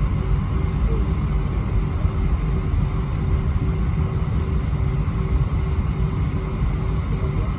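Steady low roar inside the cabin of an Airbus A320-231 airliner, from its IAE V2500 engines, with a faint steady hum running under it.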